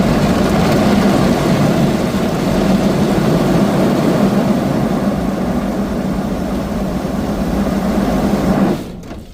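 Car driving: steady engine and road noise, which drops away sharply near the end.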